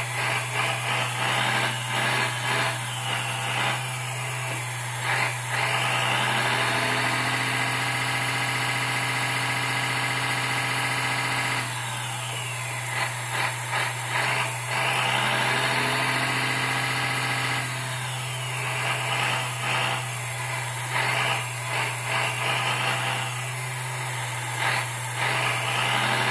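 1/14-scale Earth Digger 360L RC hydraulic excavator running: its hydraulic pump and proportional sound module's engine sound, with a steady low hum underneath. Twice the engine sound climbs to higher revs, holds for several seconds and drops back, following the hydraulic load as the arm and bucket move.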